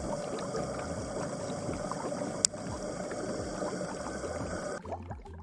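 Water sound effect: steady bubbling and gurgling, full of small pops, with one sharp click about two and a half seconds in; it cuts off abruptly near the end.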